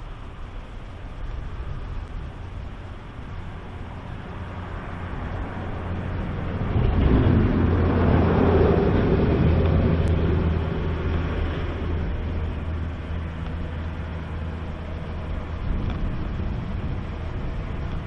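A motor passing by: a low engine drone swells about seven seconds in, peaks, then fades slowly, over a background of wind noise.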